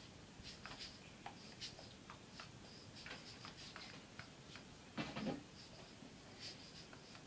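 Faint scratchy clicks and sniffing from a large dog nosing at the bottom of a door, with one short, louder sound about five seconds in.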